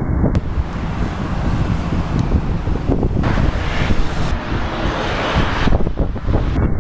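Heavy wind buffeting the microphone over the low rumble of a jet airliner's engines, with a thin high whine for about three seconds.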